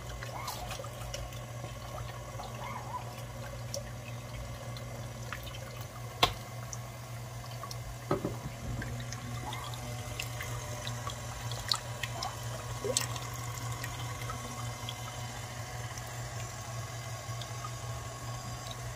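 KitchenAid stand mixer motor running steadily, driving the fruit and vegetable strainer attachment, with wet squishing and dripping as soaked tomatoes are pressed through and juice runs into the bowl. A few sharp knocks come about six and eight seconds in.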